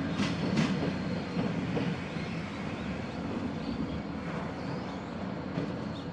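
Chichibu Railway passenger train with electric locomotives at both ends rolling slowly away: a few sharp wheel clicks in the first second, then a steady rumble that fades gradually.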